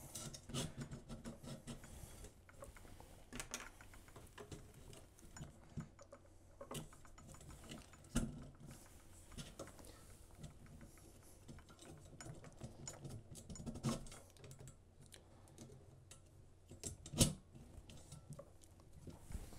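Scattered light clicks and taps of a 3D-printed bracket and its slot nuts being worked along an aluminium T-slot extrusion by hand, with a couple of sharper knocks in the second half.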